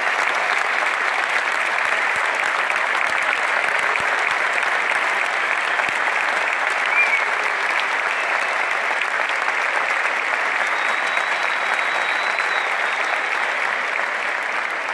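Large stadium crowd applauding steadily, the clapping of thousands of fans blending into one continuous wash of sound: a standing ovation.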